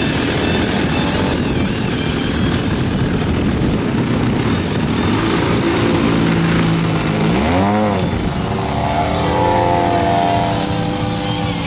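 Radio-controlled aerobatic model airplane's engine and propeller running loud and steady through a takeoff run and climb; the engine note sweeps up and back down sharply once, about two-thirds of the way through.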